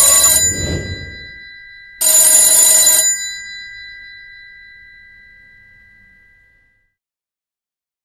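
Vintage rotary telephone's bell ringing: one ring ending about half a second in and a second ring about two seconds in. The bell then dies away slowly over several seconds.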